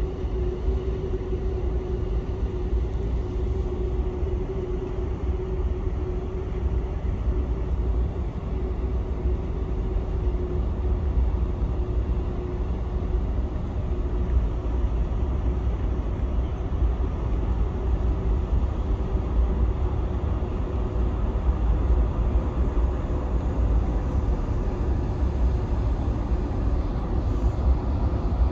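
Corsica Ferries car ferry's engines running as the ship manoeuvres in the harbour: a low, steady rumble with a steady hum that fades somewhat after the first half.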